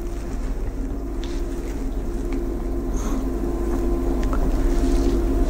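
Steady low hum with two held tones and an even background noise, growing slowly louder, with no speech.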